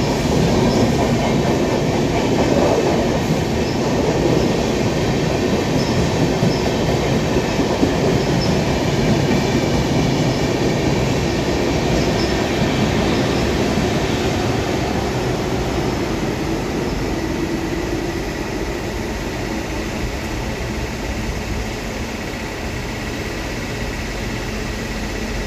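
Indian Railways passenger train running through a station: a steady rumble and rattle of the coaches' wheels on the track, easing off over the second half as the end of the train passes and draws away.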